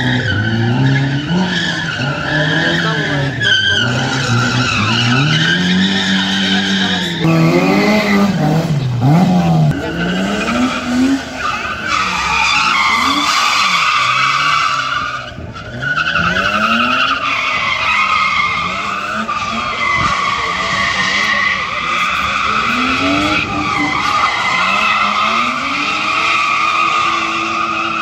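A car engine revving up and falling back again and again while its tyres squeal in long drawn-out tones as it slides through a gymkhana cone course.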